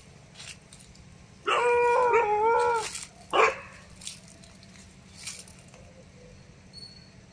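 Street dogs quarrelling over mating. One dog lets out a long, wavering cry of over a second, and another short, sharp bark follows about half a second later.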